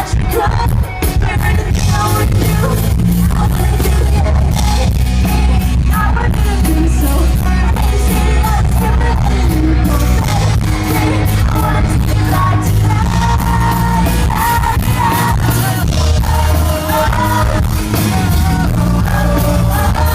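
Live pop-rock band playing a song with a lead singer, loud and steady, with audience yelling mixed in.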